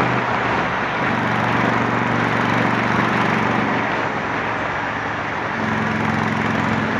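Honda Shadow 750's V-twin engine running at road speed through a 3-inch Torbal sport exhaust, with a steady rush of wind and road noise. The engine note eases about a second in and again around four seconds, then settles on a steady, slightly higher note near the end.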